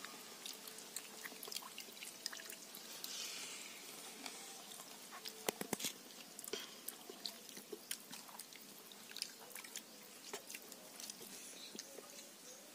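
Hand eating: fingers squishing rice in a steel bowl of water and scooping curry from a steel plate, with faint wet smacking, many small clicks and chewing. There is a louder run of clicks about halfway through.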